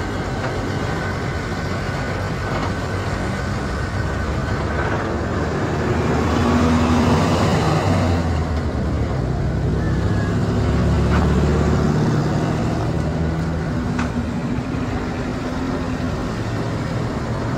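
Road traffic: cars and other motor vehicles running past, engine hum and tyre noise, with louder passes about six and about eleven seconds in.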